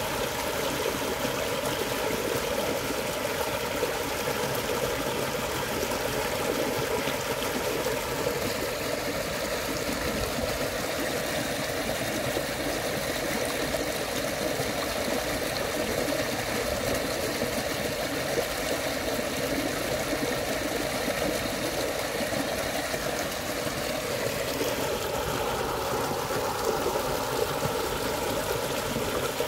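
Shallow muddy stream rushing over small rapids, a steady sound of running water.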